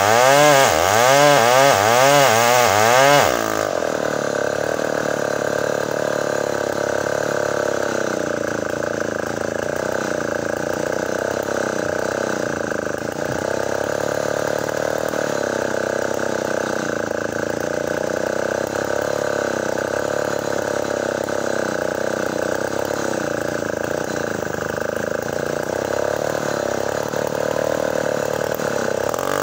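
Two-stroke chainsaw cutting a squared ulin (Bornean ironwood) log. For the first three seconds its engine pitch swings rapidly up and down. It then runs at a steadier pitch, a little quieter.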